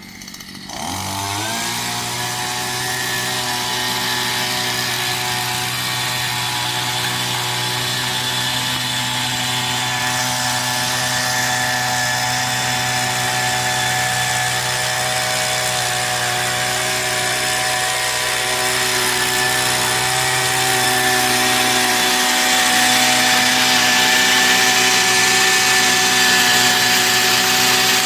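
Tea picking machine running at a steady high speed after spinning up in the first second or two, a continuous buzzing machine sound with noise from its cutting. It gets a little louder and higher about 20 seconds in.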